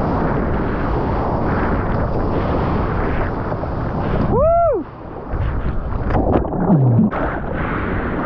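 Heavy surf breaking, with wind buffeting the microphone. About four and a half seconds in, a short whistle-like pitched call rises and falls once, and near seven seconds a brief lower tone drops in pitch.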